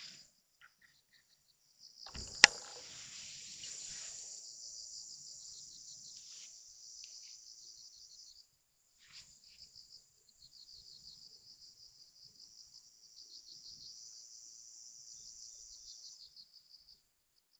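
Insects chirring in a fast, pulsed, high trill that keeps up for most of the stretch. A single sharp click about two and a half seconds in is the loudest sound.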